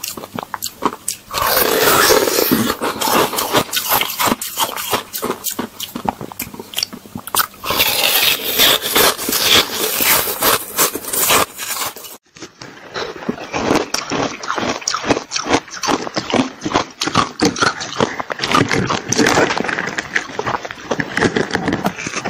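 Close-up crunching and chewing of coloured ice: many sharp, rapid crunches as the ice is bitten and ground between the teeth. About halfway there is a brief break, after which the crunching of a second, frosty ice block sounds duller.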